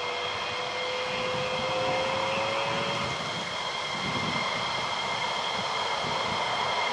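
Twin-engine F-15E Strike Eagle jets taxiing at low power: a steady turbine whine with high, even tones over a broad rush of jet noise. A lower tone rises slightly in pitch over the first few seconds.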